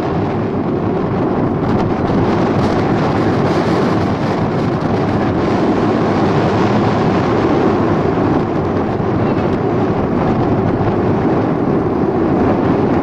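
Wind buffeting the camera microphone: a loud, steady rush of noise.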